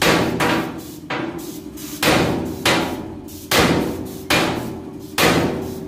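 Hammer blows on metal, about seven strikes roughly a second apart, each ringing and fading. A dent in the top crest of a truck body is being hammered straight.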